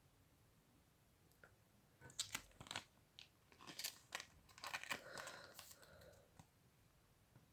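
Crinkling and rustling as trading cards and their packaging are handled, a quick run of crisp clicks and crackles starting about two seconds in and dying away near the end.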